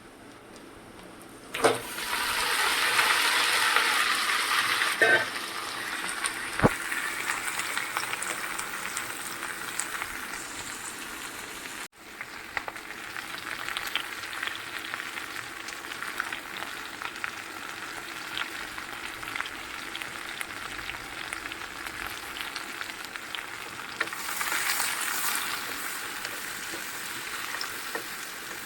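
Chopped vegetable tipped into hot oil with frying onions, setting off a loud burst of sizzling about a second and a half in. It settles into steady frying sizzle, with the knocks of a spoon stirring in the pan, and swells again near the end.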